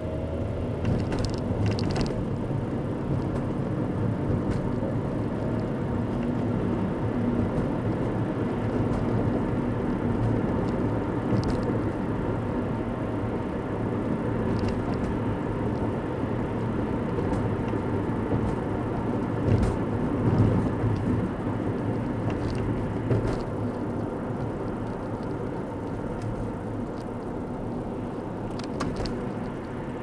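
Steady engine and tyre noise of a car driving, heard from inside the cabin, with a few short clicks and a slightly louder bump about twenty seconds in.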